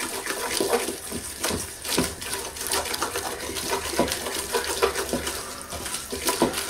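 Wooden spoon stirring and scraping a roux of flour and hot oil around a stainless steel pot, with scattered knocks of the spoon against the pot over a steady hiss of the roux frying.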